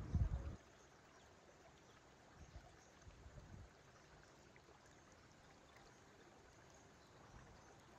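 Faint running water of a river, with a brief low rumble at the very start and a few soft low bumps about two and a half to three and a half seconds in.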